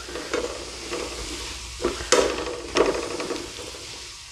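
Onions, celery and diced apple sizzling in butter and olive oil in a sauté pan, with a few scrapes and taps of a utensil against the pan as they are stirred and the apple pieces broken up.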